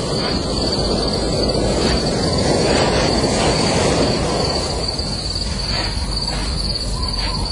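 Steady high-pitched insect drone over a constant, even wash of outdoor noise.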